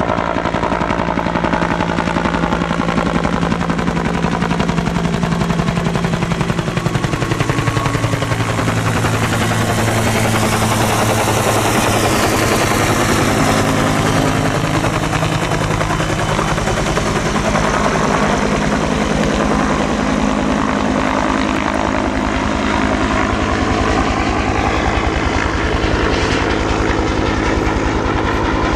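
Bell UH-1D Huey helicopter flying low overhead: the fast, steady chop of its rotor over the turbine's whine, loud throughout. Its engine pitch bends downward as it passes overhead about halfway through.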